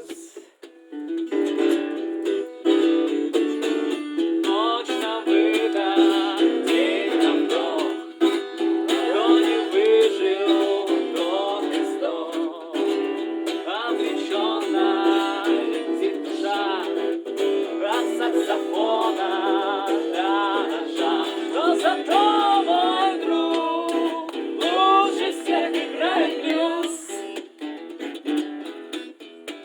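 Acoustic guitar strummed with voices singing along from about four seconds in; the sound is thin, with no bass.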